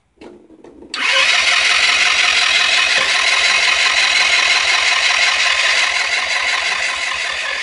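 GY6 150cc scooter engine being cranked by its electric starter: a loud, steady whirring with a fast, even pulse that runs for about seven seconds without the engine catching, then stops abruptly. A few small clicks come just before the cranking begins. The engine turns over but won't fire, even with a charged battery and a plug that sparks.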